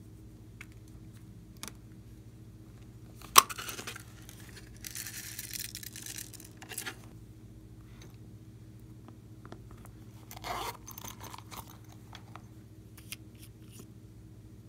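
Small containers being handled over a slime tray: a sharp click about three seconds in, then a dry rattling hiss lasting about a second and a half as star-shaped sprinkles are shaken out, followed by scattered light clicks and rustles. A steady low hum runs underneath.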